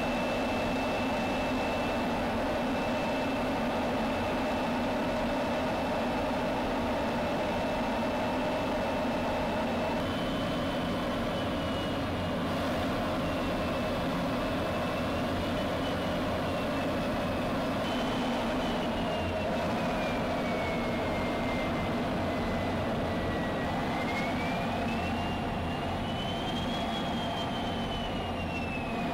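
F-16 fighter jet in flight, its jet engine and airflow heard from inside the cockpit as a steady roar with a thin high whine; the whine holds one pitch at first, then after about ten seconds wanders slowly up and down in pitch.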